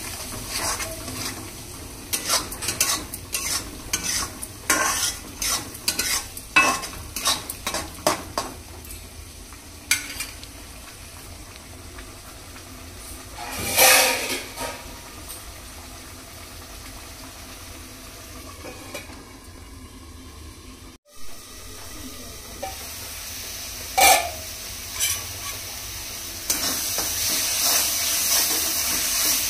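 Food sizzling in a pan while a metal spoon stirs and scrapes against it, with rapid clinks through the first several seconds. After that the sizzle goes on steadily with a couple of single knocks of the spoon, and it grows louder near the end.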